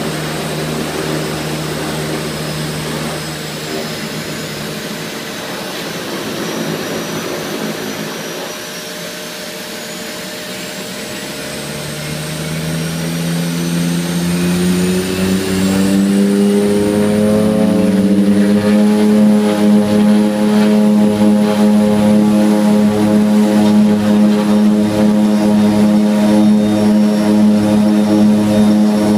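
Seaplane's turboprop engines and propellers heard in the cockpit, running at low power and then throttled up from about 12 seconds in. The pitch rises and the sound grows louder, settling into a loud steady drone at takeoff power from about 18 seconds.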